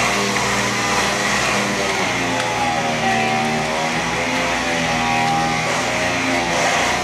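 Music with guitar, a melody line over a steady low machine hum.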